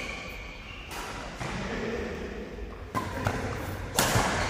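Badminton rackets striking a shuttlecock during a rally: a few sharp hits, the loudest near the end, echoing in a large hall.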